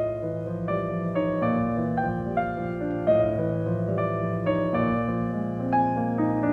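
Background instrumental music led by piano: a gentle melody of sustained notes, changing about twice a second over held low notes.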